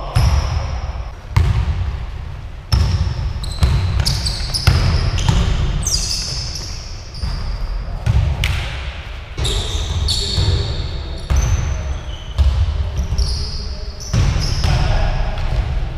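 Basketball bouncing and thudding irregularly on a hardwood gym floor, with short, high sneaker squeaks from players cutting on the court.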